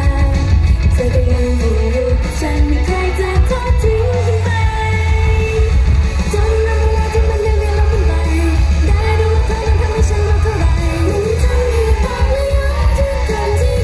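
Live J-pop-style idol song performance: a female lead vocal sings the melody over loud pop music with heavy bass, heard through the stage's speaker system.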